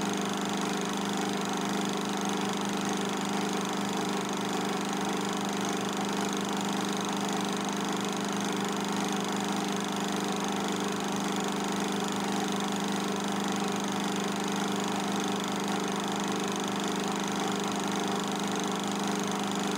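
Film projector running with a steady mechanical hum and hiss, unchanging throughout.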